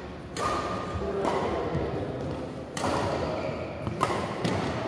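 Badminton racket striking a shuttlecock: a single sharp hit about four seconds in, against a steady rush of background hall noise.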